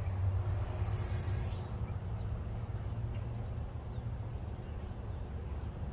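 Domestic goose hissing once for about a second and a half, an angry threat at the owner, over a steady low rumble.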